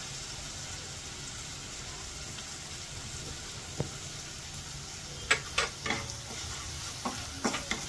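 Onion-tomato masala sizzling gently in oil in a nonstick pan on low heat. A wooden spatula scrapes and taps against the pan in several quick strokes from about five seconds in, as chilli powder is stirred in.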